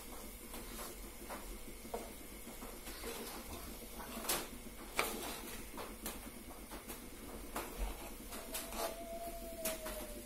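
Metal spoon stirring cooked lentils and potato chunks in a steel pot, giving soft scraping and scattered light clinks against the pot.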